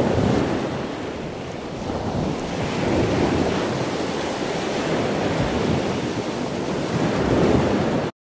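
Ocean surf: a steady rushing of waves that swells and eases a few times, then cuts off suddenly near the end.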